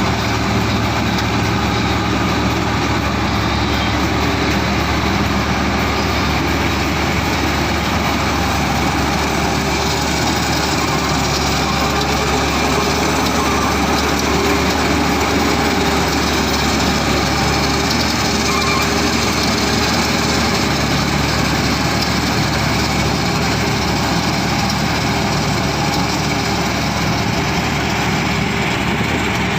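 Rice combine harvester running with a steady, even engine drone that does not change.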